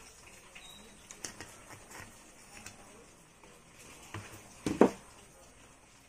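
Light clicks and taps of a DC ceiling fan's circuit board being fitted over the shaft onto its copper-wound stator, with one louder knock about five seconds in.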